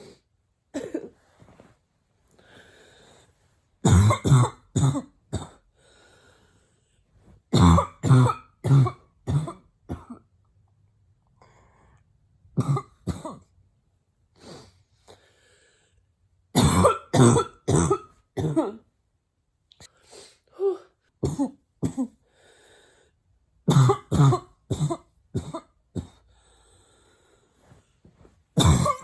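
A woman's closed-mouth barking coughs, coming in about six fits of three to five harsh coughs each, with short quieter pauses between the fits.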